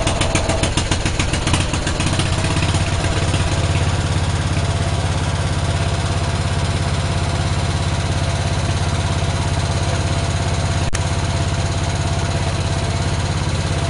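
10-horse Briggs & Stratton single-cylinder engine on a Speedex garden tractor, running cold on full choke at half throttle as it warms up after a carburetor rebuild. It runs a little unevenly for the first couple of seconds, then settles into a steady run. A single sharp click comes about eleven seconds in.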